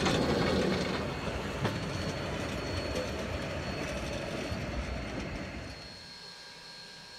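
Rail speeder (motorized track car) running along the rails, its wheels rolling and clacking on the track, with one sharp click about a second and a half in. The sound is loudest at the start and fades as the car moves off, dropping to a quiet steady background about six seconds in.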